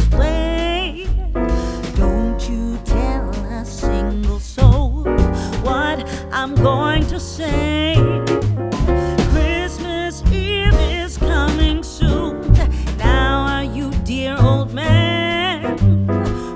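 Background music: a soul-style song with a sung melody, piano and a steady bass beat.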